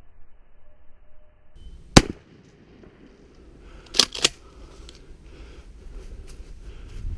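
A single loud gunshot about two seconds in, followed about two seconds later by two quicker, quieter sharp cracks close together.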